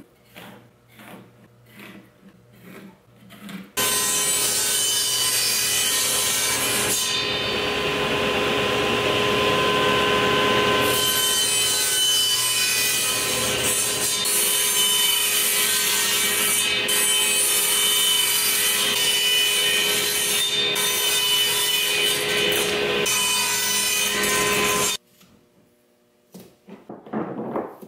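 Table saw running and cutting slots into a drilled wood board, a loud steady whine that starts suddenly a few seconds in and cuts off suddenly near the end.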